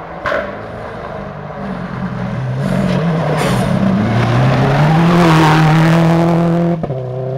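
Subaru Impreza rally car's turbocharged flat-four engine coming off the throttle into a gravel corner, its note dropping, then accelerating hard out of it with gravel and dust spraying from the tyres. Near the end the sound cuts suddenly to a steadier engine note.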